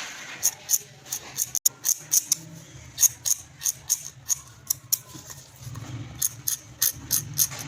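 Sharp, irregular mechanical clicks, a few each second, over a steady low hum that grows louder about six seconds in.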